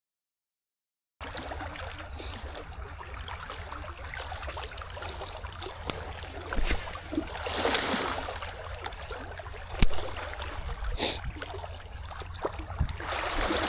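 Silence for about a second, then steady outdoor water noise with a low rumble, rising briefly twice, and a few sharp clicks.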